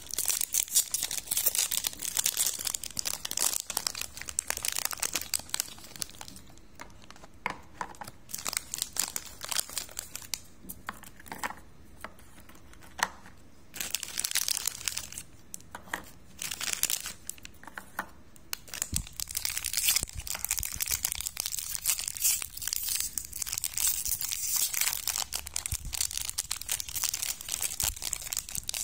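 Crinkly plastic biscuit wrappers being handled and torn open by hand: dense crackling in the first few seconds and again through the last ten, with sparser crackles and short quiet gaps in the middle.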